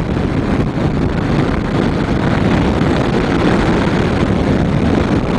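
Wind rushing over the microphone of a motorcycle riding at road speed, with the 2009 Honda CBF 1000's inline-four engine running underneath.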